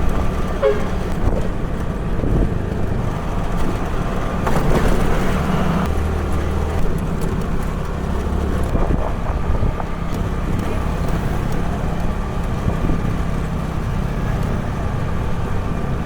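Motor vehicle engine running steadily with a continuous low hum.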